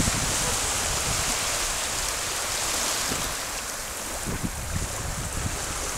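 Small waves breaking and washing over a shallow sandy beach: a steady rush of surf, with some irregular low rumbling.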